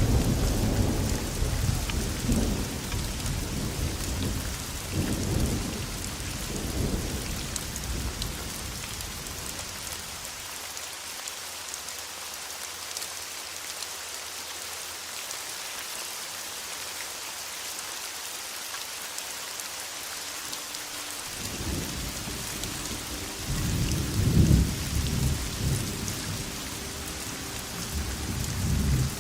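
Steady heavy rain with rolling thunder. Low rumbles run through the first several seconds and fade away. For about ten seconds only the rain is heard, then the thunder rolls in again, loudest a little past the middle of that second stretch.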